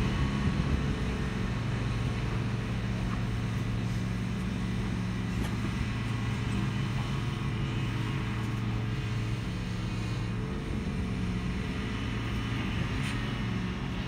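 Engine of a remote-controlled slope mower running steadily while it mows a grass bank, a low even hum whose pitch shifts slightly about ten seconds in.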